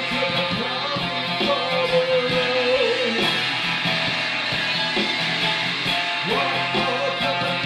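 Acoustic guitar strummed in a steady rhythm, with a man singing long held notes over it, one from about half a second to three seconds in and another near the end.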